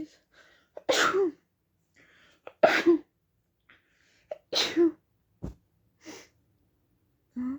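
A person sneezing in a run: three loud voiced achoos about two seconds apart, with short breaths between them, and a fourth sneeze starting near the end.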